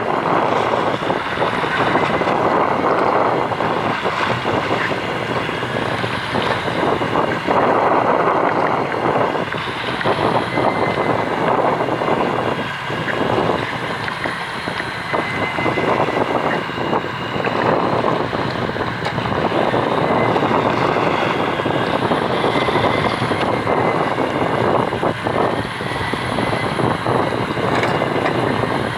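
A fishing boat's engine running steadily, with a faint wavering whine above it.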